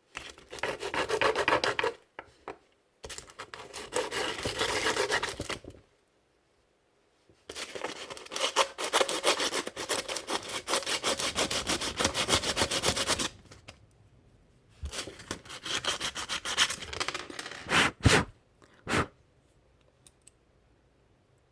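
Sandpaper scrubbed rapidly back and forth over a small part of a miniature SVD model rifle to scuff its finish, in four bouts with short pauses between them. Two sharp knocks follow near the end.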